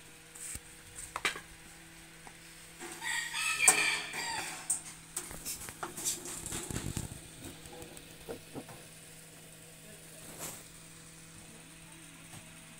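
A rooster crows loudly about three seconds in, a call lasting roughly two seconds. Under it runs the faint steady hum of a small 220 V AC pump motor.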